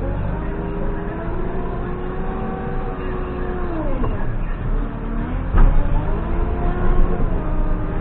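JCB 3CX backhoe loader's diesel engine and hydraulics working under load with a steady pitched drone. The pitch sags sharply about four seconds in and then recovers. A single sharp knock comes about a second and a half later.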